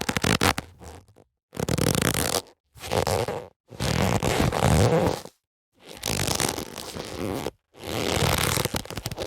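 Boxing gloves being handled: a few sharp clicks in the first second, then a series of separate rubbing, scraping sounds, each about a second long, with short silent gaps between them.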